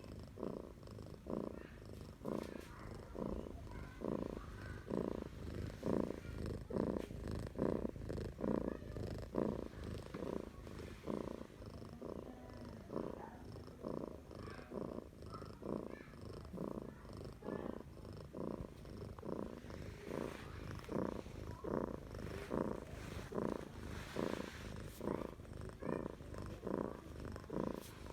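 Domestic cat purring with its low rumble, rising and falling evenly with each breath in and out, about three pulses every two seconds.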